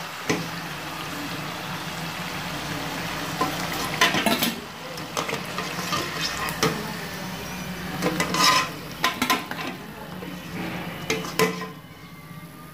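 Hot oil sizzling in a frying pan around somas fried golden and ready to lift out, with a utensil clinking and scraping against the pan several times. The sizzle drops quieter near the end.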